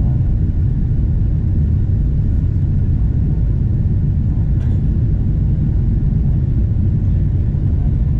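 Steady low rumble of a twin-engine jet airliner heard from inside the cabin, engines and airflow during the climb-out just after takeoff.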